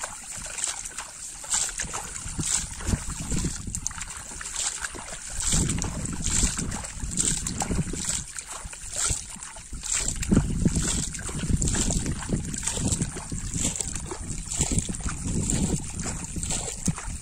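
Hands scooping shallow muddy water and mud and splashing it into a plastic bucket of fish, in repeated splashes about once a second. Low gusts of wind rumble on the microphone come and go underneath.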